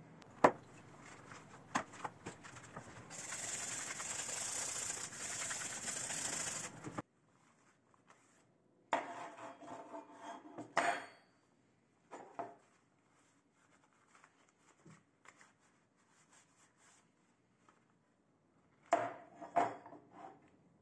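Steel tin-snip halves being handled and laid down on a table: a sharp knock about half a second in, a few seconds of steady rubbing noise that stops abruptly, then clinks and knocks with a faint metallic ring as the pieces are set down, about nine and again nineteen seconds in.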